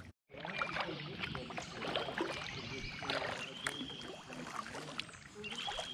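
Kayak paddle strokes: the blade dipping and pulling through the water, with splashing, dripping and water lapping at the hull. A few brief high whistle-like notes sound over it.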